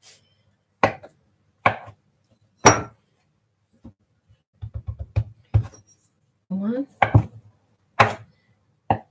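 A kitchen knife chopping soft potato gnocchi dough on a floured work surface, the blade knocking down in single strokes about a second apart, with a quick run of several knocks about five seconds in.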